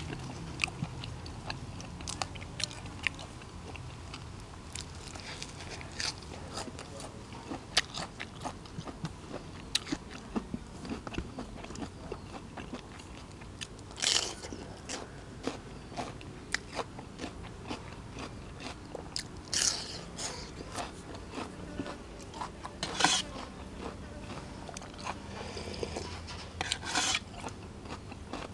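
Close-miked eating: steady chewing with many small wet clicks and about four louder crunchy bites spread through the second half.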